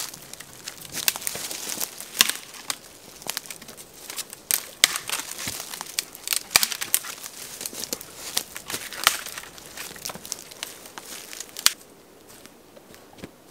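Dry dead pine twigs and branches being snapped off a pine trunk by hand: a rapid, irregular run of sharp cracks and crackles that stops near the end.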